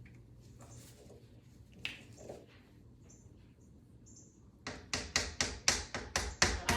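A few faint, short high chirps, then a fast run of sharp taps, about four a second, starting about two-thirds of the way through.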